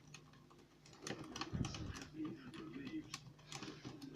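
A Bogota rake working in the keyway of a Union pin-tumbler cylinder lock under a tension tool, giving quick irregular metallic clicks as the pins are raked, starting about a second in.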